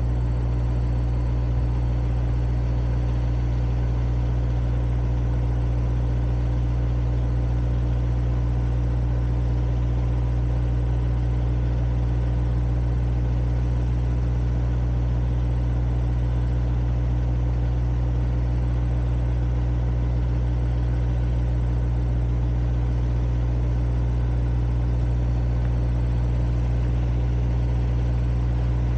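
Vehicle engine idling steadily: a constant low hum that does not change in pitch or loudness.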